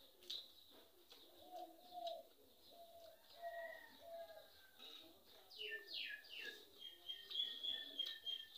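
Birds calling in the background. Short low notes come first, then a quick run of high notes that each slide downward, ending in a held high note, the loudest part.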